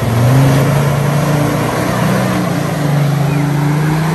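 Jeep Wrangler engine revving and labouring under load as it climbs out of a creek crossing, its note wavering up and down, over the steady rush of fast-flowing creek water.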